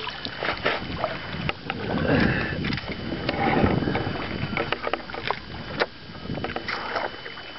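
Water and wind noise on a small fishing boat while a bass is being played on a bent rod. Scattered sharp clicks and knocks come from handling the rod and reel. The noise swells about two to four seconds in.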